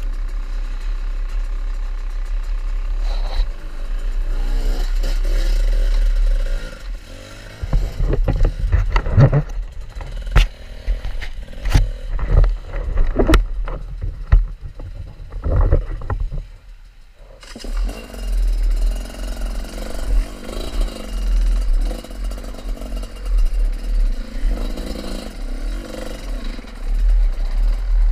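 Off-road motorcycle running, with a steady low rumble of wind on the action camera's microphone. A run of knocks and clatter comes in the middle, and the engine hum wavers in pitch afterwards.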